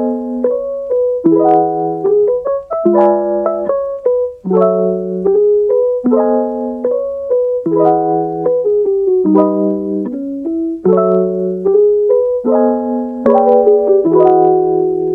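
Background music: a piano plays a steady pattern of chords, changing about every second or so.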